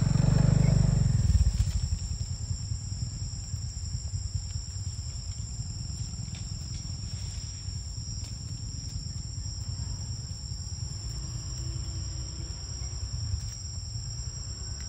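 Steady high-pitched insect chorus, two constant tones held throughout, over a low rumble that is loudest for the first second and a half and then drops to a steady background.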